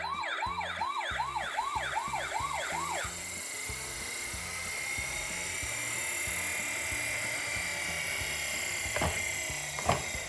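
Electronic toy siren from a minicar giving a fast yelp, about four rising-and-falling whoops a second, for about three seconds. Then a steady high whirring hiss runs on, with two sharp clacks near the end.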